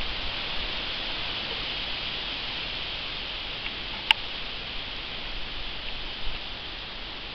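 Aspen leaves rustling in the breeze: a steady, even hiss. A single sharp click comes about four seconds in, and a few soft bumps follow near the end.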